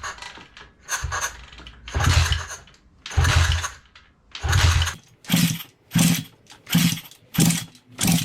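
Thumpstar pit bike's four-stroke engine being cranked over again and again without catching: a few longer turnovers, then quicker short strokes about two a second. The engine has very weak compression (35 PSI), worn top end and rings.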